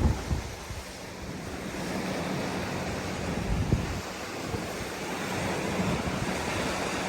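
Surf washing onto the beach in a steady hiss of breaking waves, with wind buffeting the microphone in low thumps, once right at the start and again just under four seconds in.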